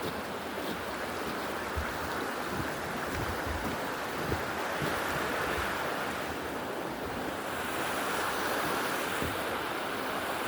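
Steady rush of a stream or small waterfall, an even hiss of running water.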